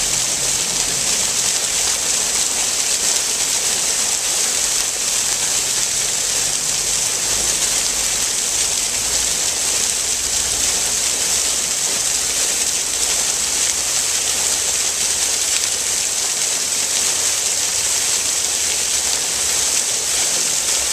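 Fountain water jets spraying up and falling back into the basin: a steady, rushing hiss of splashing water.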